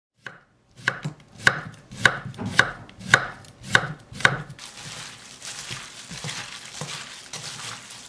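Kitchen knife chopping through firm salt-pickled cucumbers (oiji) onto a wooden cutting board: about seven crisp chops, one every half second or so. About halfway through the chopping stops and gives way to hands tossing the sliced cucumbers with seasoning in a stainless steel bowl, a steady wet rustle.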